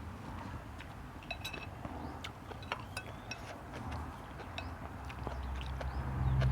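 Eating utensils clinking against a bowl in scattered small clicks and taps, over a low background rumble.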